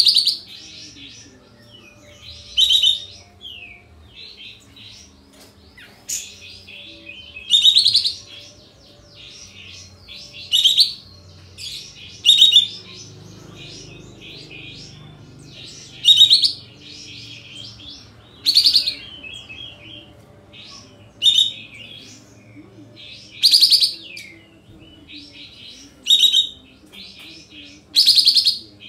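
Sooty-headed bulbul singing its loud, abrupt 'shooting' song: short, emphatic phrases every two to three seconds, with softer chattering notes between them.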